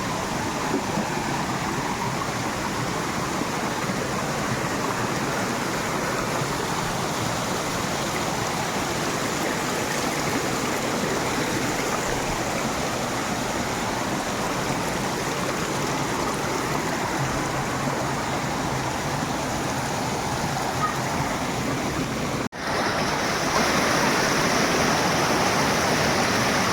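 Steady rush of water from a waterfall and its stream. About twenty-two seconds in there is a sudden brief break, and after it the rushing is louder and brighter.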